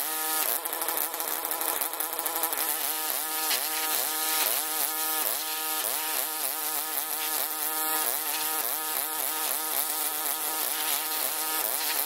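Pressure washer running with a buzzing hum whose pitch wavers up and down a couple of times a second, under the hiss of the water jet spraying onto a steel sawmill frame.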